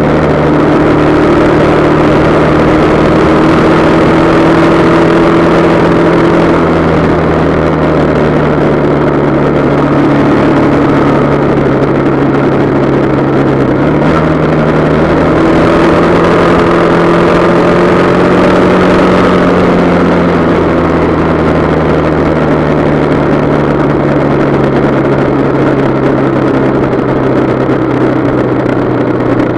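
Motorcycle engine running steadily at cruising speed, heard from the bike, with wind and road rush over it. The engine note shifts slightly upward about halfway through.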